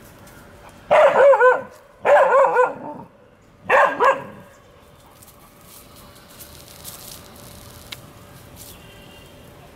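Indian pariah dogs (INdogs) barking in three short bouts within the first four seconds, the calls high and wavering in pitch. This is the alarm barking these dogs give when a snake such as a cobra is near.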